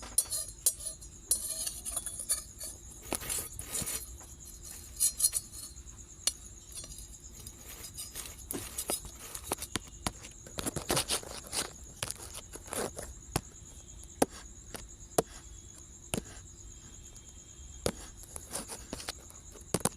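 Irregular clinks, taps and scrapes of cooking utensils at a roti stall, of varying loudness, over a steady high-pitched tone.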